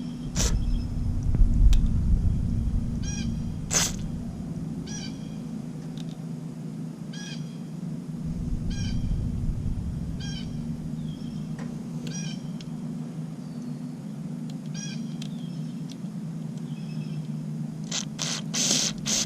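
A short chirping call repeats about once a second over a steady low hum. Near the end come several loud, short bursts of hissing air from compressed air blown through a carburetor's passages to clean them.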